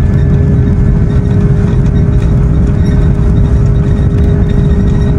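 Airbus A330-300 cabin noise by the wing while taxiing: a steady low engine rumble with a constant hum over it.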